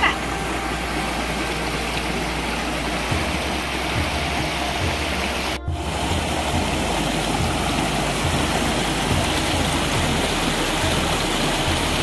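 Shallow rocky stream rushing steadily over small cascades between boulders, with a momentary break a little before halfway.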